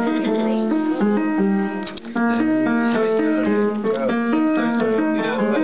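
Upright piano being played, a continuous run of notes and chords with a brief lull about two seconds in.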